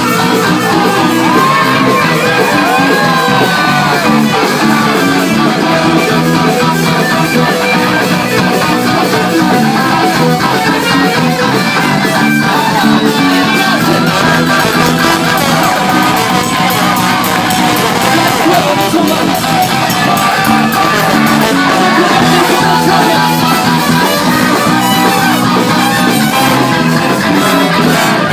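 Live rock band playing loudly on stage: electric guitars, bass guitar and drum kit, with a trumpet joining in.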